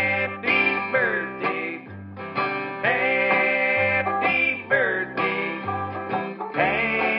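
Background music led by plucked strings, in a country style, over a bass line that changes note about every second.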